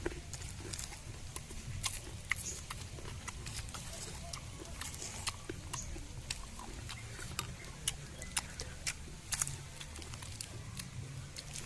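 A person eating fruit: irregular chewing and lip-smacking clicks, several a second, over a steady low rumble.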